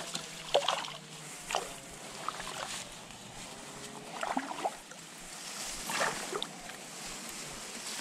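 River water sloshing and splashing lightly at a reedy bank: a low steady wash broken by several short splashes.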